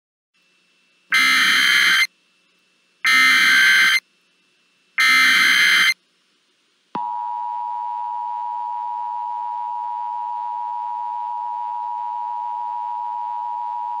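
Emergency Alert System alert opening: three screeching digital header bursts, each about a second long and two seconds apart. About seven seconds in, a steady, loud attention tone begins.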